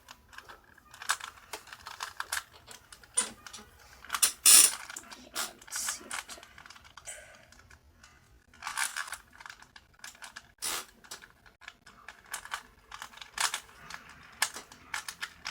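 Rubik's Cube layers being twisted by hand: irregular runs of quick plastic clicks and clacks, with one louder clack about four and a half seconds in.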